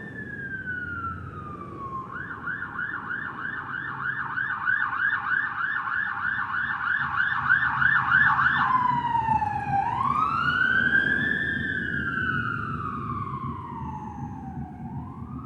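Police car siren passing: a slow wail, then a fast yelp for about six seconds, then back to slow rising and falling wails. It is loudest around the middle, over a low traffic rumble.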